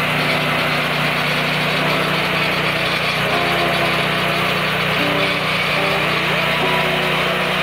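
Sawmill's small engine running steadily at an even speed, not cutting.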